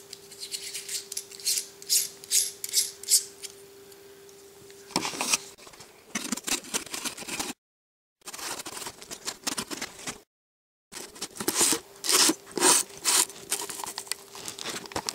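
Small clicks, scrapes and rubbing of metal and plastic parts being handled: a step-up ring and fisheye lens being threaded and fitted onto a camera. A faint steady hum runs under it, and the sound cuts out completely twice for about half a second.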